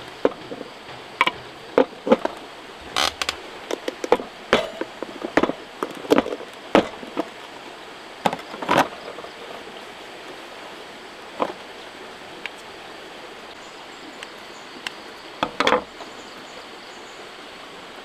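Steady rush of a river under a run of irregular knocks and clinks. The knocks come thick and fast for about the first nine seconds, then only a few scattered ones follow.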